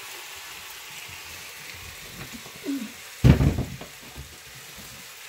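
Chicken thigh for teriyaki sizzling in a frying pan, a steady hiss, with a loud knock about three seconds in.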